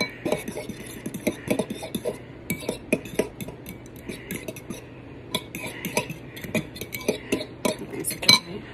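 Fork beating raw eggs in a bowl, the tines clicking against the side of the bowl several times a second in an uneven rhythm.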